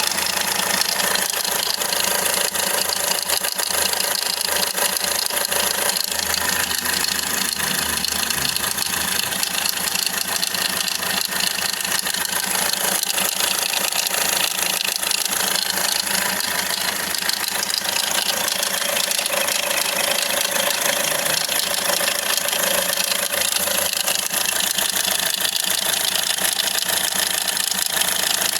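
Hyundai Accent CRDi common-rail diesel engine idling steadily, with a strong hiss-like high-pitched noise over the engine sound: the noise the uploader attributes to a loose timing chain.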